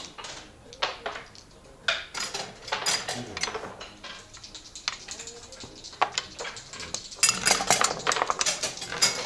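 Backgammon checkers clicking against the board and each other as moves are played: scattered sharp clicks, then a quick run of clatter about seven seconds in.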